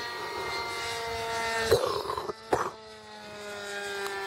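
Scratch-built radio-controlled model airplane's motor and propeller droning in flight overhead, the pitch sliding slowly down as it passes. A brief break about halfway through, after which the drone picks up at a slightly higher pitch and falls again.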